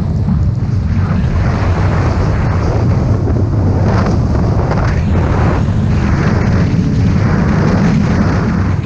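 Heavy wind rumble on an action camera's microphone as an alpine snowboard carves down the slope, with the board's edge hissing across the snow in surges that come and go with the turns, roughly once a second.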